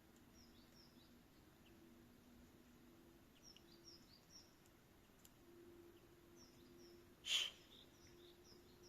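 Faint chirps of small birds, coming in short runs, over a low steady hum that comes and goes. One short, louder sound comes about seven seconds in.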